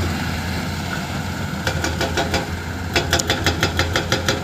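Hydraulic excavator's diesel engine running steadily. From about a second and a half in, a fast, even series of sharp metallic knocks starts and grows louder, several a second.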